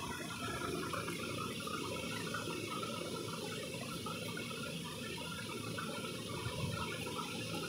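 A spoon stirring raw eggs in a stainless-steel tumbler: steady sloshing of the liquid with small irregular scrapes and taps of the spoon against the metal.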